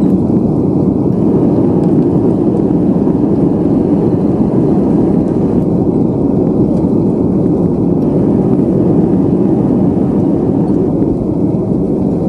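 Cabin noise of an Airbus A320 on its landing rollout with the spoilers deployed: a loud, steady rush of engine and airflow noise mixed with the rumble of the wheels on the runway.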